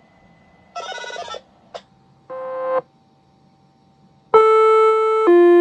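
Electronic signalling tones from a Federal Signal UltraVoice+ siren and PA controller. A short buzzing burst of rapid pulses, a blip and a brief swelling beep come first, then about four seconds in, loud, steady, buzzy tones that step to a new pitch about once a second, like an alert chime.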